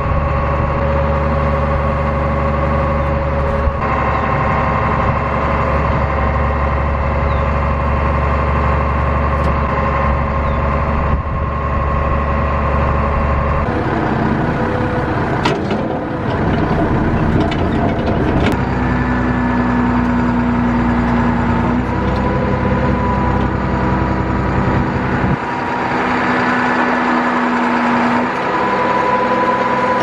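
Big John 65-inch tree spade truck running with its hydraulics worked from the control levers. The engine and pump tones shift several times as the valves are moved. Near the middle comes a few seconds of rough, noisy clatter as the blades open and the spade dumps its plug of dirt.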